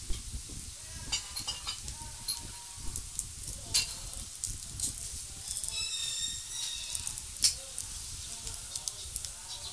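Thin plastic carrier bag rustling and crinkling as it is handled, with irregular crackles and a few louder crinkles. A brief high chirping sound comes about six seconds in.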